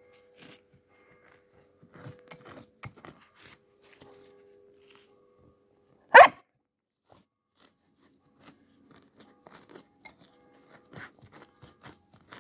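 Four-month-old Doberman puppy giving a single short bark about six seconds in, with faint scuffs and clicks around it.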